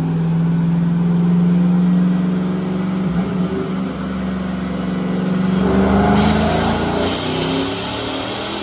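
Chevrolet Silverado's 5.3-litre LS V8 running on a chassis dyno under full load: it holds a steady note, then climbs in revs from about three seconds in during the pull. About six seconds in, a loud hiss of nitrous sprayed by hand from a bottle into the engine joins it.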